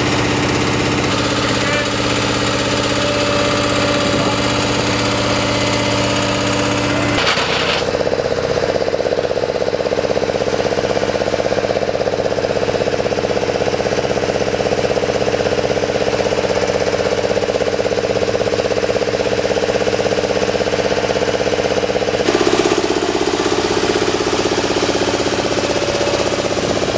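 Steady drone of running engines with several held tones over a rushing noise. The sound changes abruptly about seven seconds in and again a few seconds before the end.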